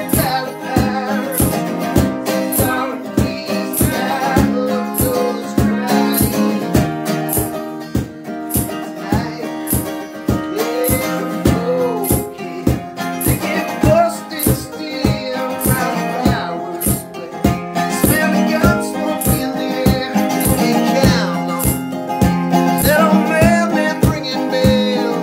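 Acoustic guitar strumming and a mandolin playing together in an instrumental passage, with a foot-tapped tambourine jingling on a steady beat about twice a second.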